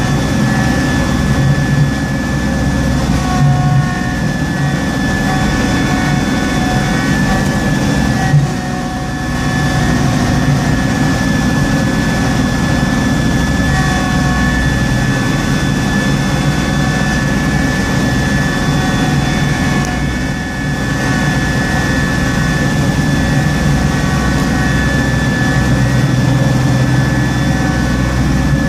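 Small Kubota tractor's engine running steadily with its front-mounted snowblower throwing snow, heard from inside the cab. A steady high whine sits over the engine, and the sound dips briefly twice.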